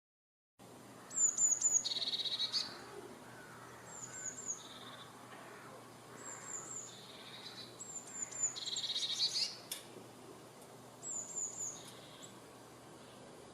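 A bird singing: a short phrase of quick high falling notes running into a rapid trill, repeated about five times every two to three seconds, over a faint steady outdoor background.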